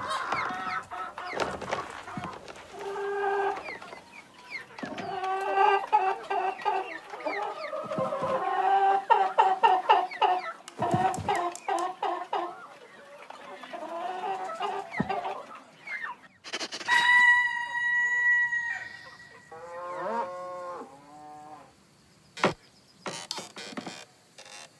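Cartoon hens clucking in many short, quick calls. About two-thirds of the way in comes one long held call, followed by a run of quick calls. Near the end it drops to near quiet with a few clicks.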